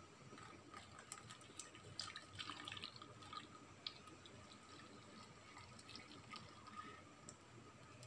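Faint trickling and dripping of a hot drink poured from a steel saucepan through a plastic tea strainer into a steel bowl, busiest about two to three and a half seconds in.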